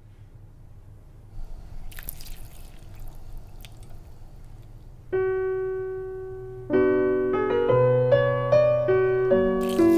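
A few faint drips and splashes of water from a watering can over a low hum, then piano notes come in about halfway and build into layered chords, with another splash near the end.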